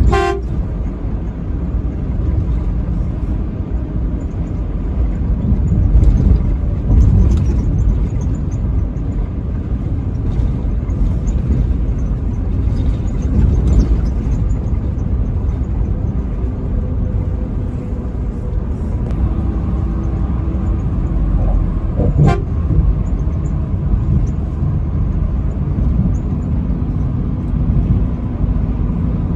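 Truck running down the road with a steady low engine and road rumble, with a truck horn blast right at the start and again at the very end. A single sharp knock comes about 22 seconds in.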